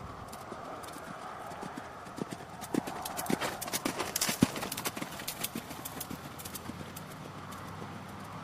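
Hoofbeats of a cantering pinto horse on a sand arena, growing louder as it passes close about midway, then fading as it moves away.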